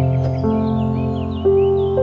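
Soft background music of held, sustained notes, a new note coming in about every second, with faint birds chirping over it.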